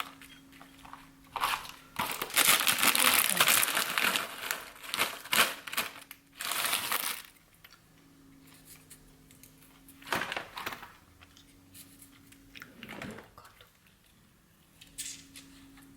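Plastic food packaging crinkling and rustling as it is handled and torn open. The crinkling is dense and loud for several seconds, then comes in a few shorter, softer bursts.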